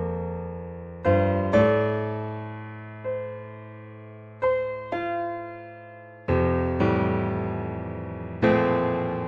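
Slow, gentle piano music: soft chords struck every second or two, each left to ring and fade away.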